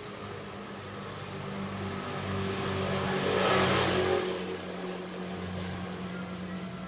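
A passing vehicle: a rushing noise that grows louder to a peak about halfway through and then fades away, over a steady low hum.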